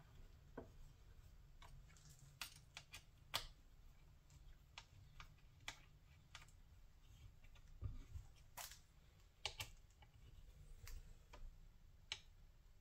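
Faint, scattered small clicks as bolts are handled and threaded by hand into a throttle body on an intake manifold, over a steady low hum.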